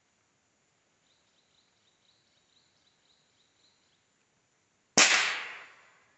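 A single Rossi R8 rifle shot about five seconds in: a sharp crack that dies away over about a second. Faint high chirping can be heard before it.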